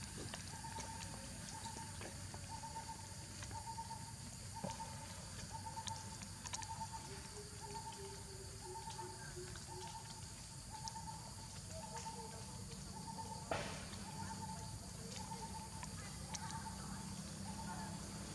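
A bird repeating one short, even note about twice a second over a steady low background hum, with a lower wavering call joining briefly and a single sharp click about thirteen seconds in.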